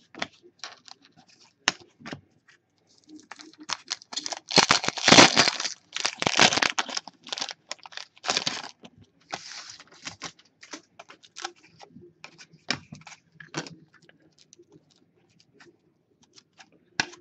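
Foil trading-card pack torn open by hand, its wrapper crackling and crinkling loudest in the middle, then lighter clicks and rustles as the cards are handled.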